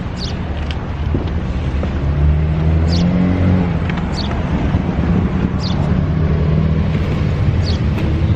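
Car engine running, its low rumble growing louder about two seconds in, with a few short high chirps now and then.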